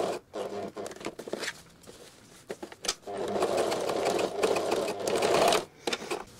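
Domestic sewing machine stitching through a fabric placket: a few short stop-start runs in the first second or so, a brief pause, then a steady run of about two and a half seconds that stops sharply near the end.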